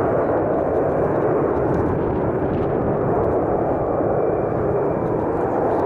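Steady jet noise from a formation of Alpha Jet trainers flying past, an even rushing roar that holds level with no change in pitch.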